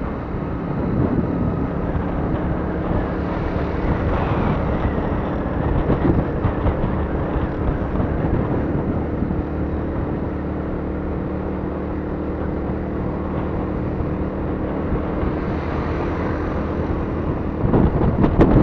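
Motorcycle engine running steadily while riding at road speed, with wind noise on the camera microphone. The sound gets louder and rougher near the end.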